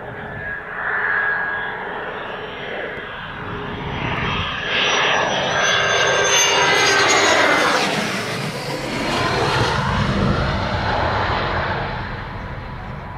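Military fighter jet's engines passing low overhead: a whining jet roar that builds and rises in pitch, is loudest about seven seconds in, then drops in pitch and fades as the jet moves away.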